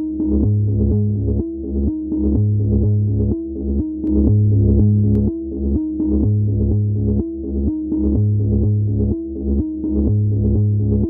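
Electronic background music: a steady pulse of short synthesizer notes over a deep bass note that repeats about every two seconds.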